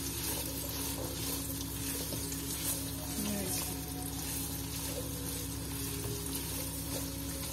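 Chopped okra sizzling as it fries in hot oil in a kadai, a steady hiss, while a silicone spatula turns the pieces. A steady low hum runs underneath.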